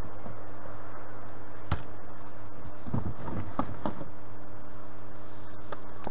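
A steady low hum with a few faint clicks and rustles, one about two seconds in and a small cluster in the middle.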